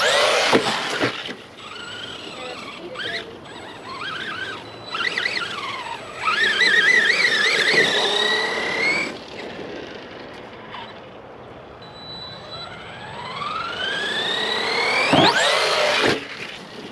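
Electric motor of an Arrma Big Rock V3 RC monster truck whining as it is driven hard for backflips. The pitch rises as the truck accelerates near the start and again over several seconds toward the end, and the whine wavers in between as the throttle is worked.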